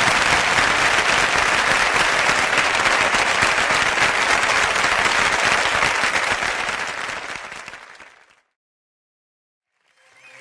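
Audience applause from a live recording, following the end of a sung track, dying away about eight seconds in. After a second or so of silence, the next song's music begins near the end.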